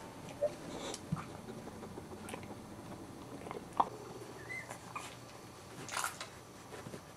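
Two-week-old Boxer puppies giving a few brief, high squeaks, with small clicks and scuffles between them and a short rustle about six seconds in.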